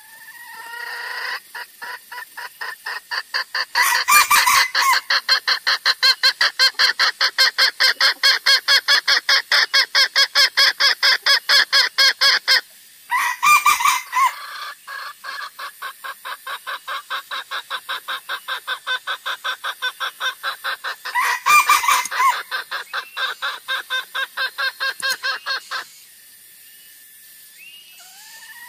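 Junglefowl lure calls: a fast, even run of clucks, about six a second, with three louder, harsher calls breaking in. The run pauses briefly about halfway and stops a couple of seconds before the end. It is a recording made to call in wild junglefowl.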